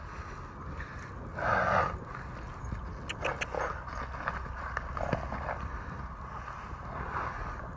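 A piebald cob horse cantering and bucking loose on grass: its hoofbeats, with a few sharp knocks around three and five seconds in and a short louder rush of noise about a second and a half in.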